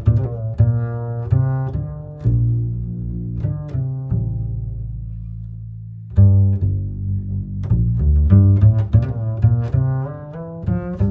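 Background instrumental music on low plucked and bowed strings, a quick run of notes with one long low note held about four seconds in.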